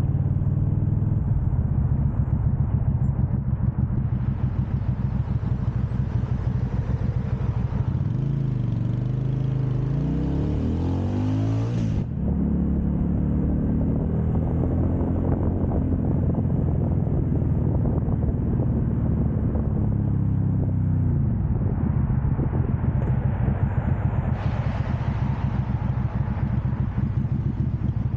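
Benda BD300-15 motorcycle engine running under way. Its pitch climbs as it accelerates, drops suddenly about twelve seconds in, and winds down again about twenty seconds in as it slows.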